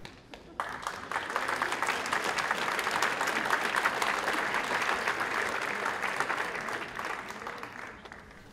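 Audience clapping in a large hall. The applause starts sharply about half a second in, holds steady, then thins out and fades near the end.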